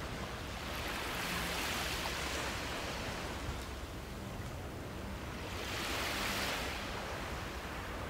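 Small waves washing onto a sandy beach: a steady surf hiss that swells twice, about a second in and again about six seconds in, as each wave breaks and runs up the sand.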